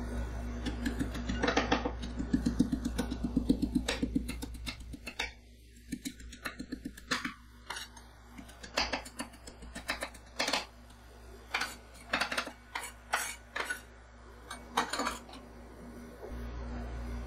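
Two metal spatula scrapers chopping Lotus Biscoff cookies on a steel ice-roll cold plate, metal clinking and scraping on metal as the cookies crunch. The strokes come fast and close together for the first few seconds, then slow to separate taps and scrapes. A low steady hum runs underneath.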